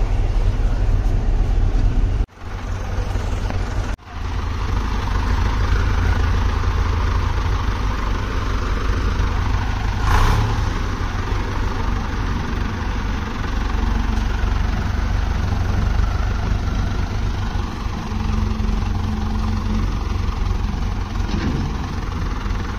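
Hindustan 80 tractor's diesel engine running steadily as it pulls a trailer. The sound drops out briefly twice a few seconds in.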